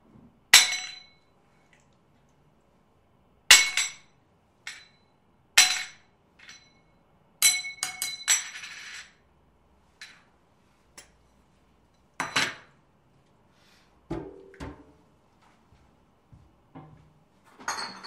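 Kitchen Foley at a sink and cupboard: hard kitchen items set down and knocked together in separate clinks a few seconds apart, each with a short ring. A short noisy scrape follows a quick cluster of clinks just after 8 seconds in, and a duller, lower knock comes about 14 seconds in.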